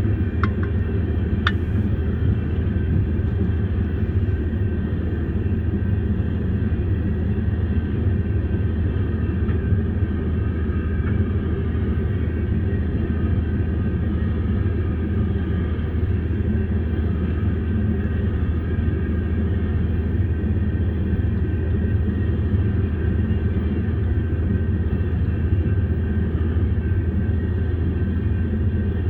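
Union Pacific freight train's cars rolling steadily past a grade crossing: a continuous low rumble of wheels on rail, heard through a car's windshield, with a couple of brief clicks in the first two seconds.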